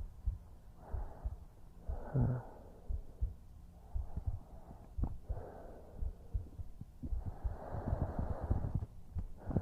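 A man's heartbeat heard close up as a steady run of low thuds, with his slow breaths in and out drawn several times over it. The beat is at what he insists is a normal pace, not fast.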